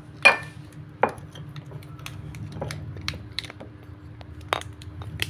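A spoon stirring a drink in a glass, clinking against the glass again and again at an uneven pace; the loudest clink, about a quarter second in, rings briefly.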